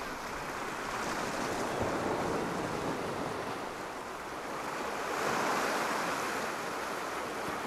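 Sea waves washing against a rocky shore, a steady rush that swells about five seconds in and eases again.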